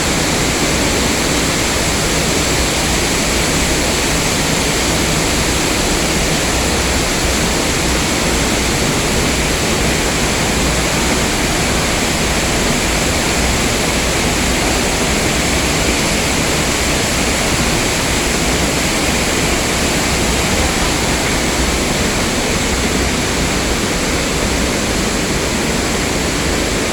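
Waterfall pouring, a loud steady rush of falling water with no breaks.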